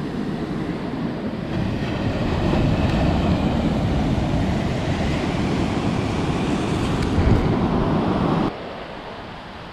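Wind buffeting the microphone over ocean surf, swelling a second or so in and cutting off abruptly near the end.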